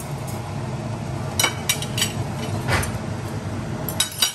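Metal fork and spoon clinking against ceramic plates several times, sharp ringing taps over a steady low hum.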